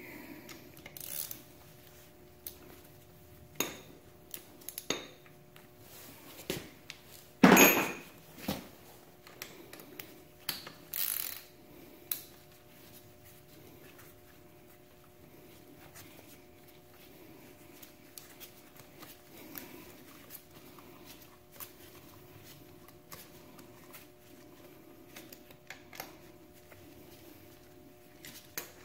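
Metal tools and hardware clinking and knocking as they are handled, with the loudest clank about seven and a half seconds in and a few more around ten to twelve seconds, then only occasional light ticks. A faint steady hum runs underneath.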